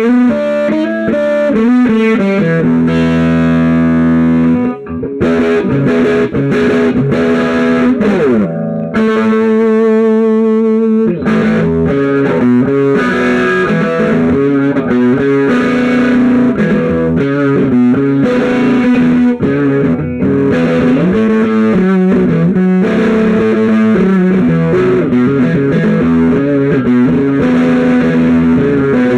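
Electric guitar played through a 1964 Marshall JTM45 tremolo 2x12 combo with KT66 power tubes: a continuous run of single notes and chords, with a sliding note about eight seconds in and a held chord that ripples quickly around ten seconds in.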